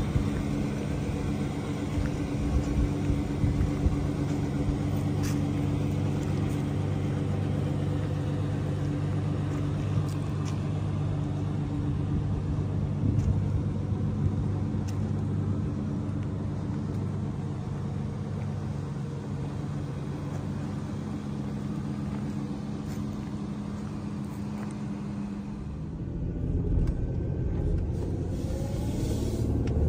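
2006 Ford Ranger engine idling steadily, heard from outside the truck. Near the end the sound changes to the cabin of the moving truck: engine running under way with road noise.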